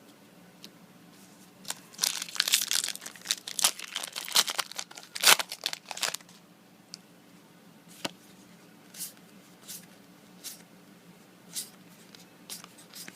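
A foil Yu-Gi-Oh booster pack wrapper being torn open and crinkled, a dense crackling for a few seconds with one sharp loud rip near the middle, followed by a few soft clicks of the cards being handled.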